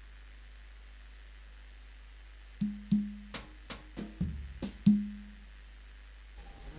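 Faint steady hum, then from about two and a half seconds in a quick, uneven run of about eight drum hits, each with a short ringing tone, stopping a little before the end.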